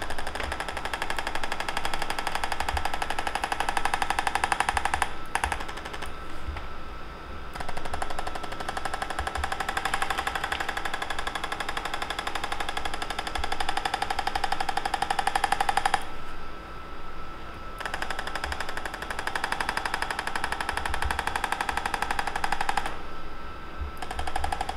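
Electric percussive chiropractic adjusting instrument tapping rapidly, about 13 light taps a second, against a cat's spine. It runs in several bursts, stopping briefly a few times, with the longest pause about two-thirds of the way through.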